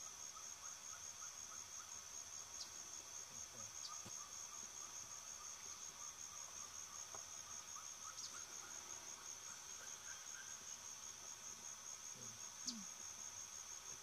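Steady, high-pitched insect chorus of crickets or cicadas in tropical scrub, faint. Lower down, a faint series of short chirps runs from about two seconds in to about ten seconds in.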